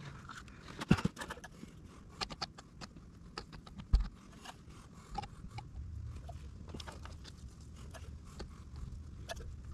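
Scattered clicks, knocks and scrapes of hands handling PVC conduit and a metal can of PVC cement on a sand trench bed, with a heavy thump about four seconds in as the can is set down. A low rumble comes in about five seconds in.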